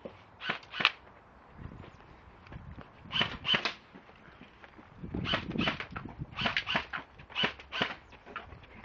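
Gas-powered airsoft guns firing: about ten sharp pops, often in quick pairs, thickening into a faster run of shots in the second half, with some low thuds among them.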